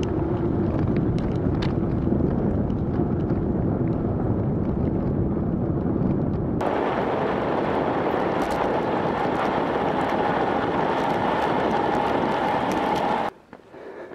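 Steady rush of wind on the microphone and wheel rolling noise from a kick scooter being ridden, with a low rumble and a steady hum. About six and a half seconds in, the sound switches abruptly to a brighter hiss with a higher hum. It cuts off suddenly shortly before the end.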